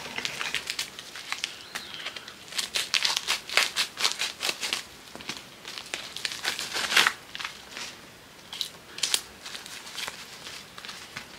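Plastic packaging crinkling and rustling in the hands in irregular bursts, as small items are unwrapped.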